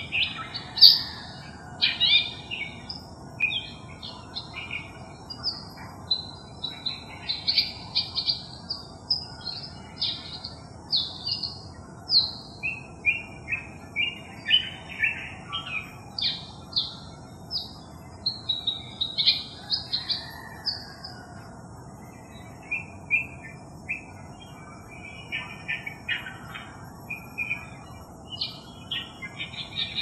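Long-tailed shrike singing a rambling mimicry song of quick, varied chirps and squawks, with a sparser stretch about two-thirds of the way in. Near the end come phrases that the recordist takes for imitations of a crested myna, a collared kingfisher and a Eurasian tree sparrow.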